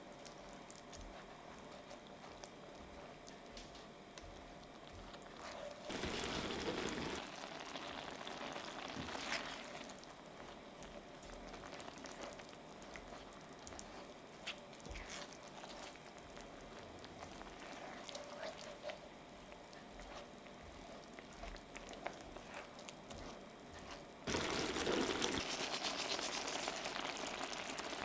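Rice and shiitake mushrooms simmering in saffron water in a cast iron skillet, stirred with a spatula, with scattered small clicks and splashes of liquid. There is a louder burst of liquid sound about six seconds in and again for the last few seconds.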